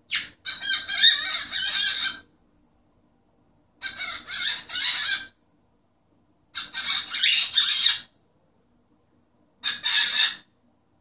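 Cockatiel chattering and warbling in four bursts of one to two seconds each, with pauses between.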